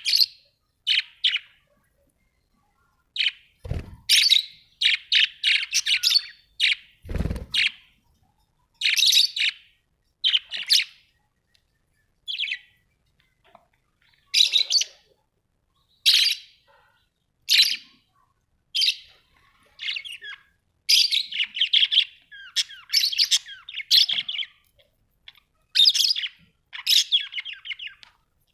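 Budgerigars chirping and chattering in short bursts with silent gaps between them. Two brief low thumps come a few seconds apart in the first third.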